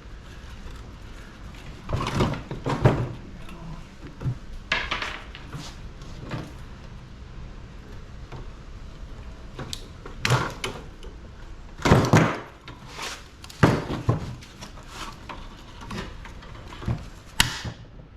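Irregular clanks and knocks of sheet-metal parts being handled and pried apart while an air-conditioner unit is dismantled for scrap, about a dozen separate impacts.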